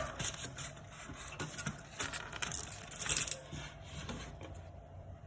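Scraping and rubbing of the water generator's inner lid being pulled free of its foam seal and lifted off, in uneven bursts that are loudest about two to three seconds in and die away near the end.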